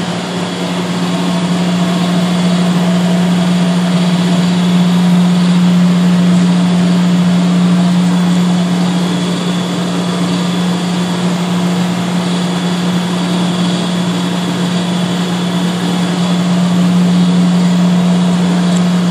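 1966 Cleaver Brooks oil-fired boilers running: a loud, steady drone with a strong low hum under a broad rushing noise.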